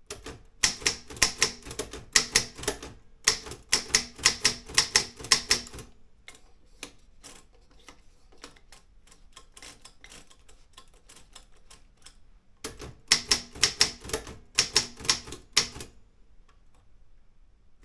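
Olympia M8 manual typewriter being typed on: quick runs of typebar strikes, about four a second, in two bursts with a quieter stretch of faint clicks between them.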